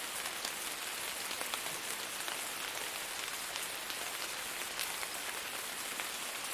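Steady rain falling on a surface: an even hiss with many distinct drops ticking through it.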